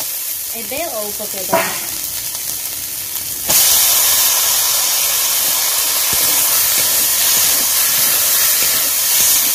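Onion and spice masala sizzling in hot oil in a kadai, turned with a flat metal spatula. About three and a half seconds in, the sizzle jumps suddenly louder, with sliced elephant apple frying in the pan from then on.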